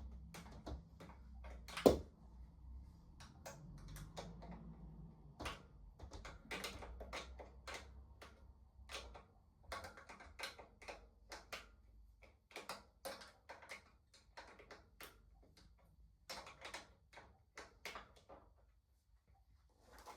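Irregular clicks, taps and knocks of tools and bike parts being handled during e-bike assembly, with one sharp, much louder knock about two seconds in.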